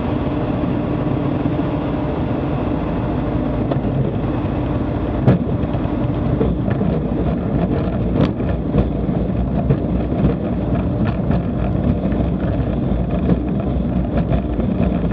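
Single-engine light aircraft's propeller engine at low power, heard inside the cockpit as the plane slows on its landing roll down the runway. From about five seconds in, scattered clicks and knocks sound over the steady engine noise.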